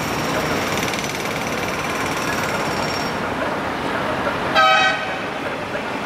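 A vehicle horn gives one short toot of about half a second, near the end, over the steady noise of passing traffic.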